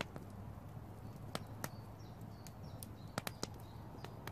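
Wood campfire crackling: scattered sharp pops and cracks, several in quick succession about three seconds in.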